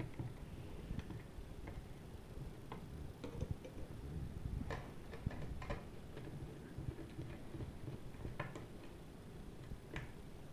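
Faint, irregular clicks and ticks of a small Phillips screwdriver working screws out of an external hard-drive enclosure.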